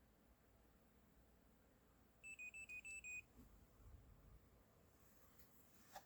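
TomTom Bandit action camera's electronic start-up beeps: a quick run of about six short high beeps, alternating slightly in pitch, over about a second. They are the sign that the camera is powering on after the power button is held.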